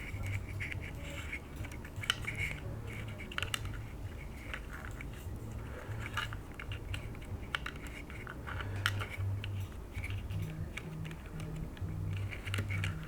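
Small clicks and scratchy ticks of fingers working a wire into a small plastic part, irregular throughout, over a low intermittent hum.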